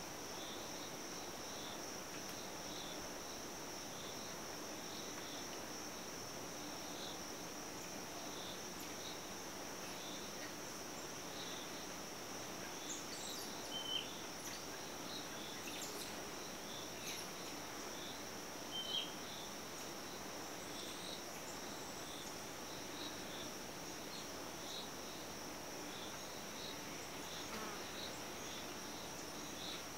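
Steady high-pitched drone of tropical insects, with a second insect chirping regularly about once a second. About halfway through come two brief, sharp, high chirps about five seconds apart.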